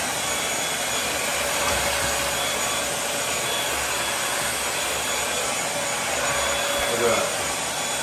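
Bissell Featherweight corded stick vacuum running steadily while sucking up crushed crackers from a vinyl tile floor: a steady motor whine over the rush of air, with a brief louder moment near the end.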